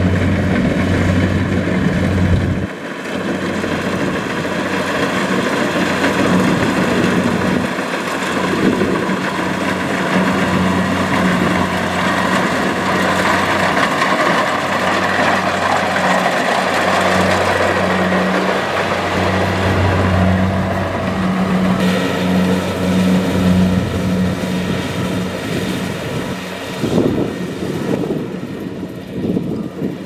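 Kubota DC-70 Plus rice combine harvester working in the field: its diesel engine running steadily under load, a low even hum with the dense mechanical rush of the cutting and threshing gear over it.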